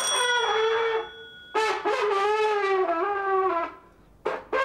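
Trombone played by a beginner: a held note that breaks off about a second in, then a second, longer note that wavers and slides down before stopping.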